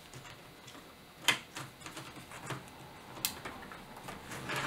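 Clicks and light knocks of hands handling a Shen Hao TZ45-IIC wooden 4x5 field camera as a lens is fitted to it and its metal fittings are worked. A few sharp clicks stand out, the loudest about a second in and another near three seconds in.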